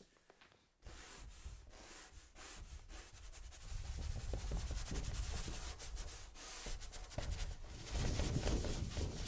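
Flat bristle paintbrush scrubbing thick ochre paint onto a paper sheet: a dry, rasping rub in many quick back-and-forth strokes. It starts after a brief silence about a second in and grows louder from about four seconds in, loudest near the end.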